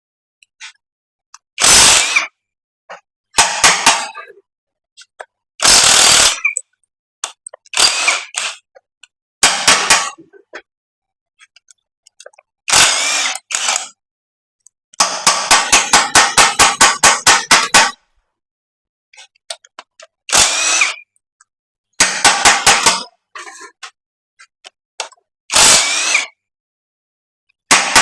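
Ratchet wrench loosening engine bolts during teardown: about ten separate bursts of rapid ratcheting clicks, some lasting two to three seconds, with pauses between them and a few single metallic clicks.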